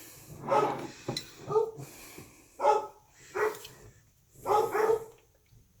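A pet dog barking in short separate barks, about six in all at irregular spacing, set off by something it has heard down the street. There is a sharp click about a second in.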